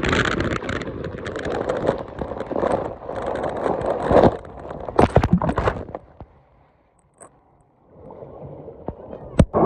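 Water rushing and splashing around a phone camera riding down a water slide, with sharp splashes as it plunges into the pool around four to five seconds in. The sound then drops almost to silence for about two seconds before faint water sounds return.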